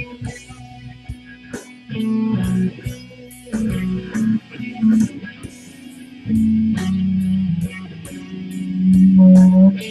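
A blues tune played on guitar: picked notes and phrases over low bass notes, with regular sharp ticks of the beat. The loudest held low note comes near the end.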